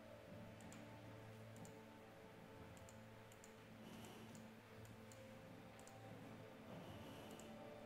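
Near silence with faint, irregular computer mouse clicks, about ten of them, over a low steady hum.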